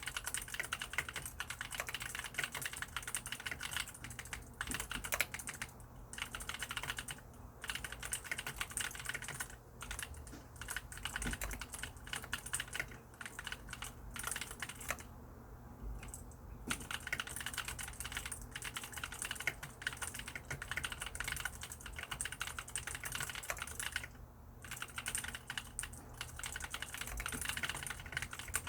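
Mechanical keyboard with lubricated blue (clicky) switches being typed on continuously in a fast run of key clicks, with brief pauses about 15 seconds in and again near 24 seconds.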